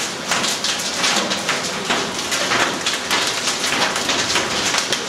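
Heavy thunderstorm rain pouring down, a steady hiss with a dense patter of drops striking close by.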